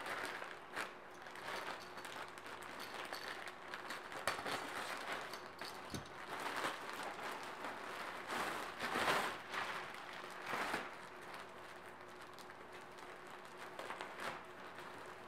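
Plastic shipping packaging and a clear polybag rustling and crinkling in the hands as a package is opened and a garment pulled out. The rustling comes in irregular bursts, loudest about nine seconds in.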